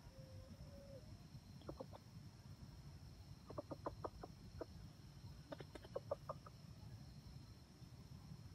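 Red junglefowl clucking softly. A drawn-out low note at the start is followed by quick runs of clucks: three about two seconds in, then two bursts of seven or eight in the middle. A faint steady high hum runs underneath.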